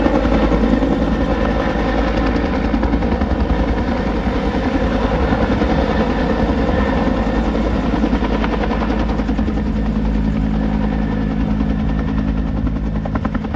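Firefighting helicopter running loud and steady, its rotor blades chopping over the turbine's whine. A steady low hum joins about two-thirds of the way through, and the sound eases off a little near the end.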